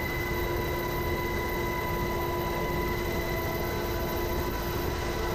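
UH-60 Black Hawk helicopter in flight, heard from inside its cabin with the door open: a steady loud roar of engines, rotor and rushing air, with a constant high whine over it.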